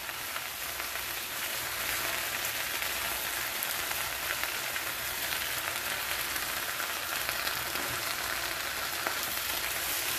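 Fresh spinach sizzling in a hot pan with garlic and butter, a steady hiss as the leaves wilt down, while they are turned over with a wooden spatula.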